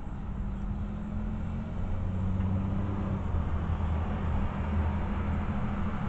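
Low engine rumble of a motor vehicle, growing louder about two seconds in and then holding steady.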